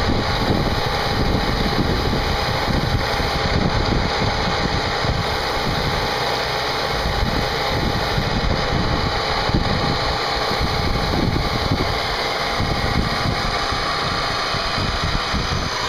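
CNC machine running while machining a part: the spindle runs steadily with a constant whine over a dense mechanical rumble.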